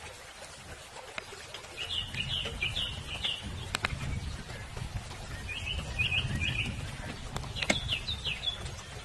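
A small bird chirping in three short bursts of quick, high notes, over a low rumble. Two sharp clicks sound, one just under four seconds in and one near the end.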